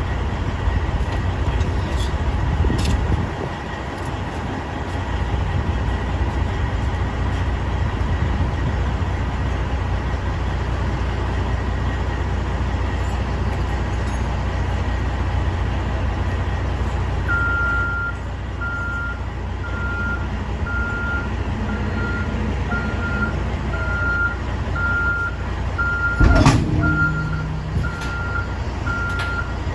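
Heavy truck's diesel engine idling with a steady low rumble. From just past halfway a reversing alarm beeps about once a second, and a short loud burst of noise cuts in a few seconds before the end.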